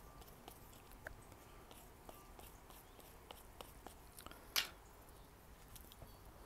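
Faint scraping, squishing and small clicks of a hand tool and fingers working soft air-dry clay, smoothing it over a crack in the wall of a coil pot. One short, louder swish comes about four and a half seconds in.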